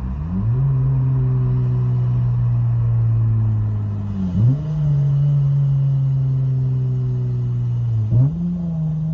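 Acura TL's six-speed manual J32 V6 pulling at full throttle, heard from inside the cabin. Quick gear changes come near the start, about four seconds in and about eight seconds in, each a short dip and jump in the engine note.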